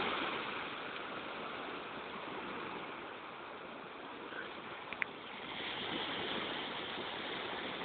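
Small waves washing up on a sandy beach, a steady hiss of surf that grows a little louder in the second half, with one sharp click about five seconds in.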